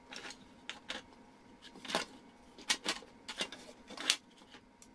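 Handling noise on a repair bench: a dozen or so short clicks, taps and rustles at uneven spacing as the steam iron's plastic housing is shifted and multimeter test probes are set against its wiring.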